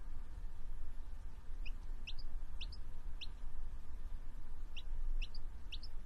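Baby chick peeping: about seven short, high, rising peeps in two runs, the first starting about a second and a half in and the second near the end, over a low steady hum.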